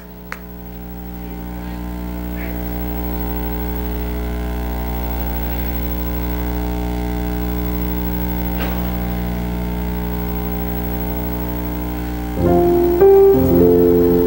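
Church keyboard playing a held chord that swells in over the first two seconds and sustains without fading. About twelve seconds in it moves into louder, changing chords.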